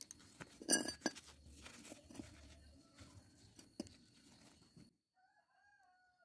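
A sheet of paper rustling and crinkling as gloved hands wrap it around a thin steel pipe, with a sharp crinkle about a second in and a few light knocks. After a sudden drop-out, a faint drawn-out wavering call is heard near the end.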